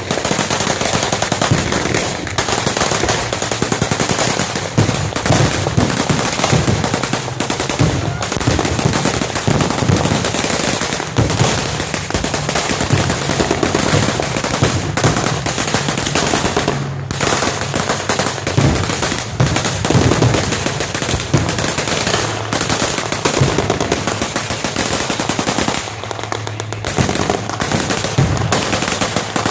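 Machine guns firing blanks in near-continuous rapid bursts, several guns overlapping, with two short lulls about 17 and 26 seconds in.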